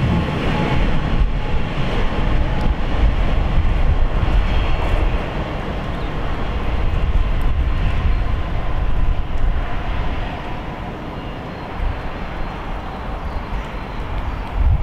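Electric passenger trains running past on the main line, a Class 390 Pendolino close by: a steady rumble of wheels on rail with a faint steady whine. It eases after about ten seconds as the trains draw away.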